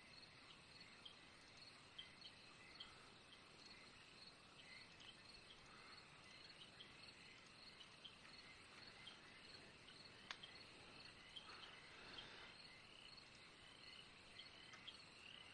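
Near silence: faint insect chirping, small high chirps repeating about twice a second over a low hiss, with one sharp click about two-thirds of the way through.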